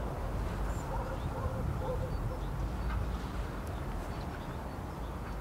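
Outdoor ambience: a steady low rumble with faint, scattered bird calls.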